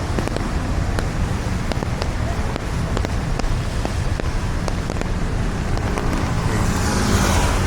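Street traffic at an intersection on a wet road: steady tyre noise and engine rumble with wind on the microphone, and a vehicle hissing past close by near the end.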